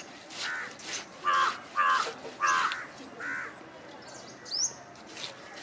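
A crow cawing five times in quick succession, the middle caws loudest, with a single short rising chirp from a smaller bird near the end. Faint scratchy strokes of a fish being scraped along a boti blade run underneath.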